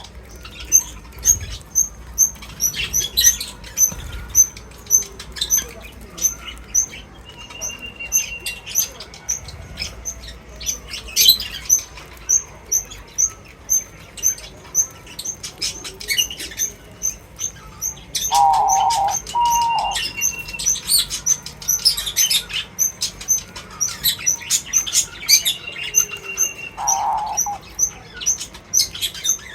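Small birds chirping in a rapid stream of short, high repeated notes, with scattered rustles or flutters. A held whistle sounds three times, and lower calls come twice in the second half.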